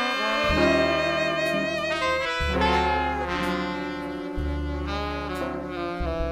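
Live jazz octet's horn section of alto and tenor saxophones, trumpet and trombone playing sustained ensemble chords, with long low notes underneath changing about every two seconds.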